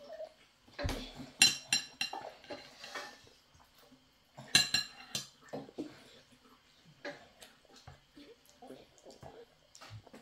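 A metal fork clinking and scraping against a ceramic plate. The loudest ringing clinks come about a second in and again around four and a half seconds in, with lighter taps between.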